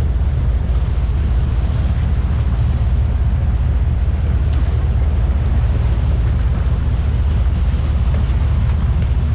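Diesel inboard engines of a 61-foot custom Carolina sportfishing boat running steadily while trolling, a constant low drone under the rush of the boat's wake and wind.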